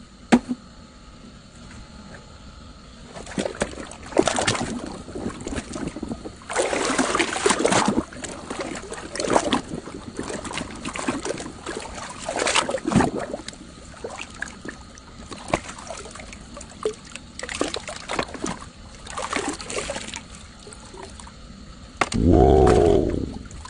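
Water splashing and trickling in uneven bursts as toy trucks are dipped, rinsed and scrubbed clean.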